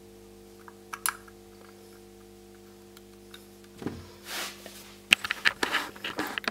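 Small plastic clicks and handling knocks as an SOP8 adapter socket is fitted into the ZIF socket of an EZP2010 USB programmer: a couple of clicks about a second in, a knock just before four seconds, then a quick run of clicks over the last second and a half. A steady low hum runs underneath.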